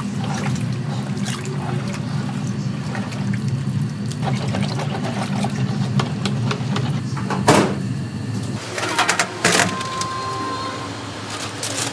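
Food-stall kitchen work: a steady low hum with scattered clicks and utensil clatter, a loud knock about halfway through and a burst of clattering soon after.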